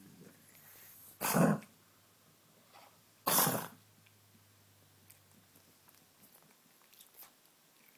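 Older pug coughing: two short, loud coughs about two seconds apart.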